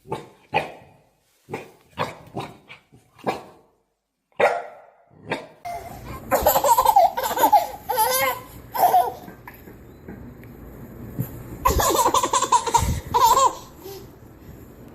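A dog barks in about ten short, separate barks, then loud laughter comes in two bouts, the first about six seconds in and the second near the end.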